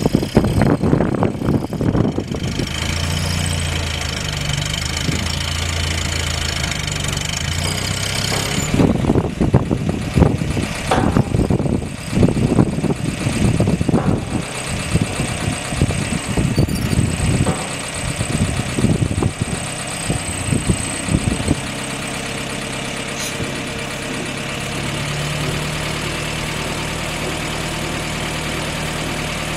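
Willys CJ6 jeep engine running steadily, powering its PTO winch as it hoists a steel frame on the gin pole. Irregular low buffeting from wind on the microphone sits over it through the first two thirds, then the running steadies.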